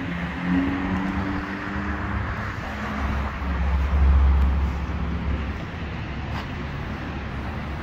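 Low engine rumble from a car, swelling about three seconds in and easing off a couple of seconds later, with a faint humming tone near the start.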